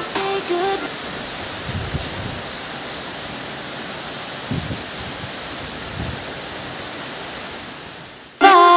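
Heavy rain pouring down, a steady even hiss that fades out just before music cuts in near the end.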